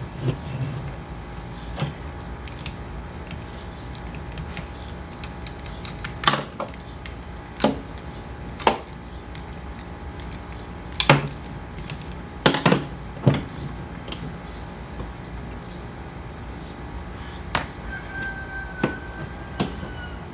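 Irregular clicks and knocks of small metal parts from a tractor hydraulic pump being handled and set down during teardown, a dozen or so spread unevenly, over a steady low hum.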